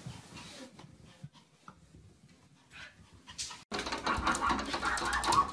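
Faint, scattered sounds, then suddenly louder a few seconds in: rapid tapping and scrabbling of paws on a glass sliding door as a small dog and a cat paw at each other, with the dog's excited noises.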